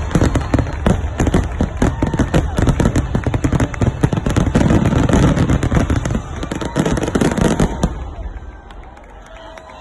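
Fireworks going off in a rapid, dense barrage of bangs and crackling with a low rumble, stopping about eight seconds in and leaving only a few scattered pops.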